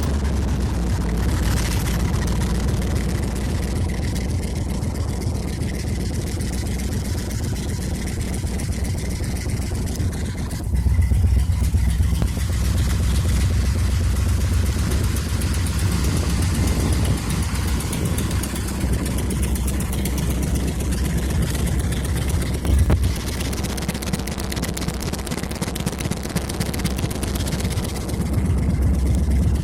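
1976 Ford F-100's engine running just after a start, with an exhaust leak. It runs steadily and gets louder for a while about a third of the way in and again near the end.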